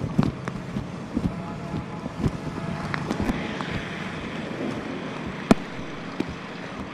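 Road noise from a moving vehicle on a rain-soaked road: a steady hiss of tyres on wet pavement and wind. Scattered light clicks run through it, with one sharp knock about five and a half seconds in.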